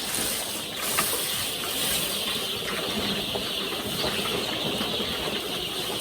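Dense, continuous high peeping of a large brood of young chicks over a steady hiss, getting stronger toward the end.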